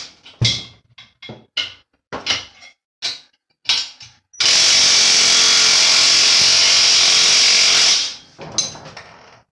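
Impact wrench fastening a bolt, run in about seven short trigger pulls, then held on for a continuous run of roughly three and a half seconds before stopping and winding down.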